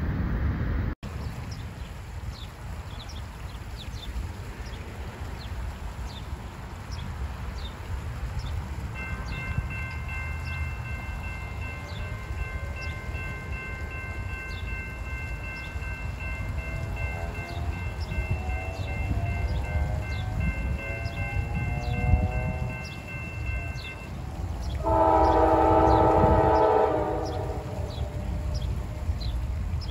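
Grade-crossing warning bell ringing steadily from about a third of the way in, over a low rumble. Near the end, the air horn of a Norfolk Southern freight train led by a GE Dash 9-40CW sounds one loud blast of a few seconds.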